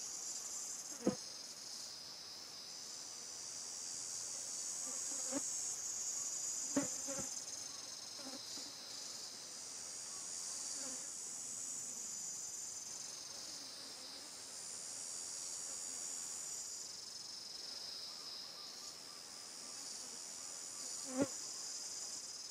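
Steady high-pitched insect chorus that swells and eases every few seconds. A few brief sharp sounds stand out above it: about a second in, around seven seconds, and near the end.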